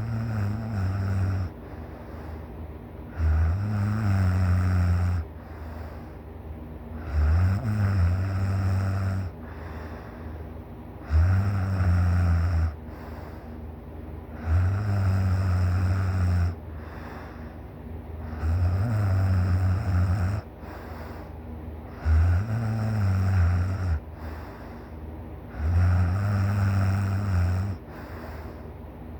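A person snoring loudly and hard in deep sleep. It is a low-pitched snore about every four seconds, each lasting about two seconds, with quieter stretches between.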